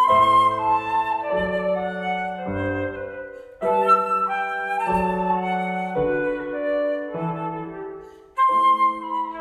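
Concert flute playing a slow melody in phrases, over a lower accompaniment whose bass notes change every second or so.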